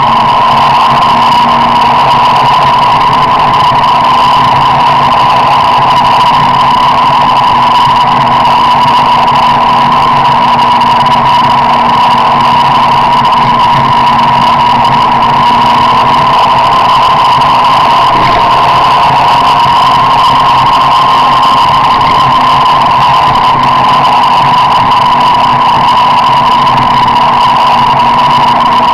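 Car driving at a steady speed: a loud, even drone with a constant high-pitched tone over it that does not change.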